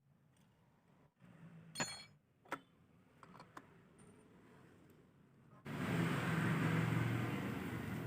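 A few light metal clinks, then a Honda Vario scooter's engine and CVT drive start up suddenly about two-thirds in and run steadily with a low, rough hum.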